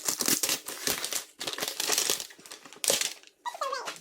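Plastic toy packaging crinkling and rustling as it is handled and unwrapped, a dense run of crackles.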